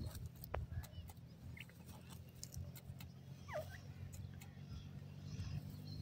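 Grey francolin dust-bathing in dry soil, with soft scuffing and a few light ticks of grit over a steady low hum. A couple of faint thin chick peeps come through, one falling in pitch about three and a half seconds in.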